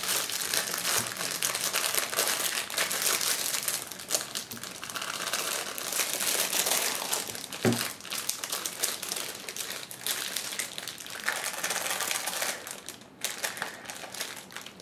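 Clear plastic packaging crinkling and crackling as it is handled and pulled off a foot-long toy pencil, in a dense run of crackles that eases briefly near the end.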